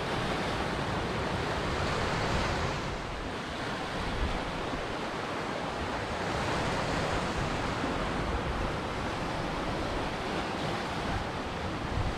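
Ocean waves washing onto a beach: a steady rush of surf that eases slightly about three seconds in and swells again around six seconds.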